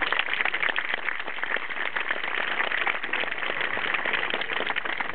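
Crowd applauding, with many hands clapping steadily.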